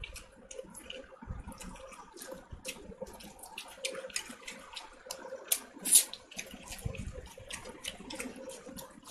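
Fingers squishing and mixing wet rice and dal and tearing at a piece of chicken curry on a plate: many small wet crackling clicks and smacks, with one sharper, louder click about six seconds in.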